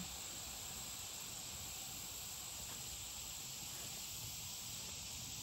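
Faint, steady chorus of insects such as crickets, an even high hiss that does not change.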